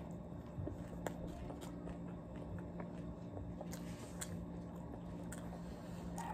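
A person chewing a mouthful of chicken sandwich with the mouth closed: faint, scattered soft clicks over a low steady hum.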